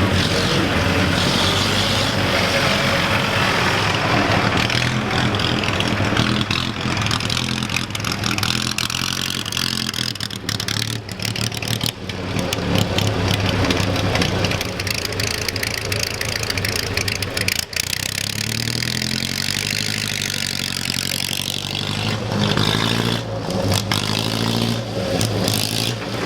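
Classic car engines running, with revs rising and falling several times. A run of sharp ticks sounds through the middle stretch.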